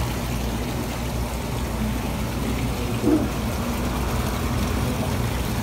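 Live-shrimp bait tank with its water pump and aeration running: a steady electric hum under bubbling, trickling water.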